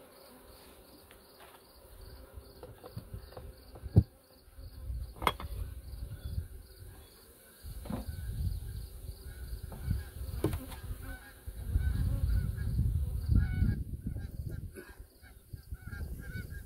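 Wind gusting over the microphone in low rumbles, with sharp knocks of wooden hive boxes and parts being set in place, the loudest about four seconds in. A faint high chirping repeats about four times a second underneath.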